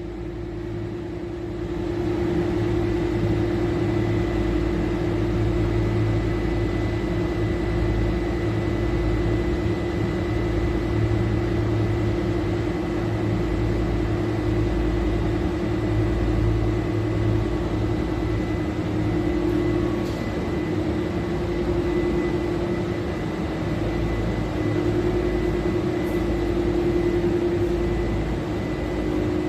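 Refrigeration machinery of a low-temperature, high-humidity refrigerator running with a steady hum and a constant tone, coming up to full level about two seconds in.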